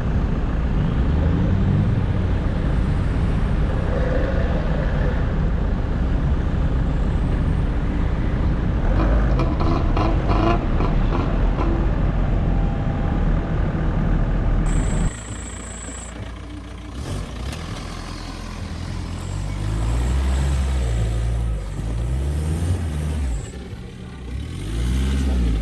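Off-road 4x4 vehicle driving in snow: loud, rough driving noise with a run of knocks partway through. About halfway, the sound changes abruptly to an engine revving up and down again and again.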